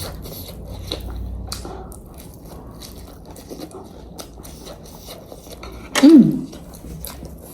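Close-up eating sounds: a person chewing and biting food with a run of small crunching clicks. A short vocal sound comes about six seconds in.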